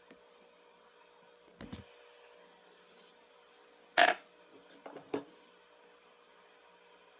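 Coins being handled and knocked: a few short dull clicks and clinks, a double one near two seconds in, the loudest about four seconds in and two more just after, none of them ringing on.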